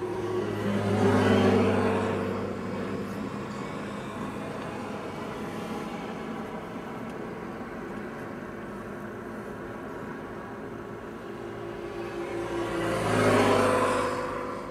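Two road vehicles pass one after the other, one about a second in and another near the end, each engine and tyre noise swelling and fading, over a steady low engine hum.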